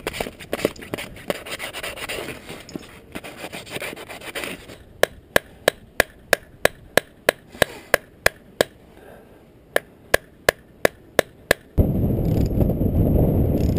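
Rustling and scraping of gear being handled in a bag, then a hammer striking a new 1/2-inch stainless steel Rawl bolt into its drilled hole in the rock: about a dozen sharp metallic strikes at roughly three a second, a short pause, then five more. Near the end a loud steady rushing noise sets in.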